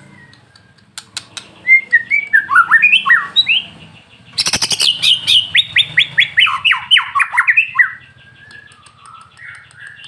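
White-rumped shama singing: a few sharp clicks, then whistled phrases. A harsh crackling rattle comes about four and a half seconds in, followed by a fast run of repeated descending notes for about three seconds, ending in softer notes near the end.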